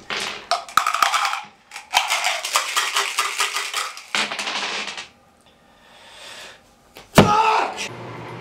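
Dice rattled in a plastic cup and tipped onto a wooden floor, quick runs of clicks over the first five seconds, then a single loud sudden sound a little after seven seconds.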